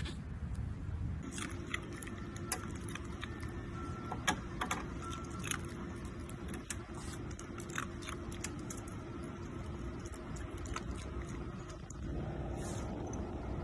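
A small fluffy white dog biting icicles off the edge of a wooden bench: irregular sharp clicks and snaps of the ice cracking between its teeth.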